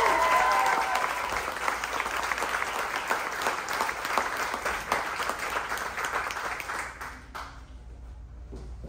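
Theatre audience applauding as a sung musical number ends; the clapping dies away about seven seconds in.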